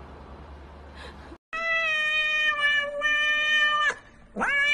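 A cat giving one long, level meow of about two and a half seconds, then, after a brief pause near the end, starting a second meow that rises in pitch.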